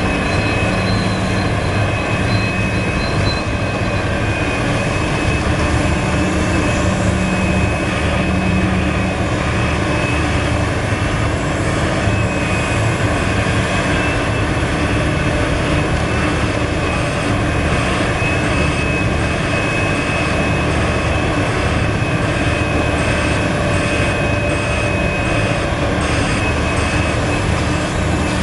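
Large Liebherr R974 hydraulic excavator's diesel engine running steadily under load as it digs and swings, a low hum with a steady high whine over it.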